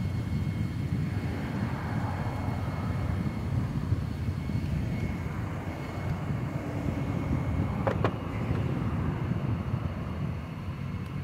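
Wind buffeting the microphone with an uneven low rumble. A single sharp click comes about two-thirds of the way through as the plastic body shell is pressed onto the RC car's chassis.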